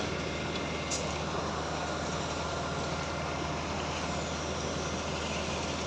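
Heavy diesel machinery running steadily at a concrete pour: the truck-mounted concrete boom pump and transit mixer trucks working, an even hum with a low drone.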